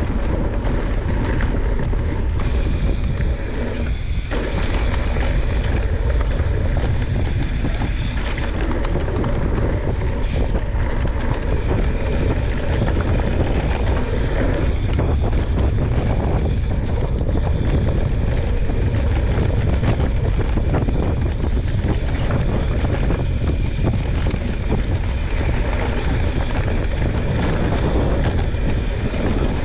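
Wind buffeting the microphone and the tyres of a YT Jeffsy 29 full-suspension mountain bike rolling fast over a dry, hard-packed dirt trail, with a continual clatter from the bike over small bumps.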